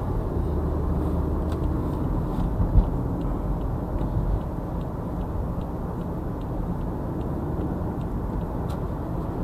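Car driving, heard from inside the cabin: a steady rumble of engine and road noise, with a faint regular ticking about twice a second from about two seconds in.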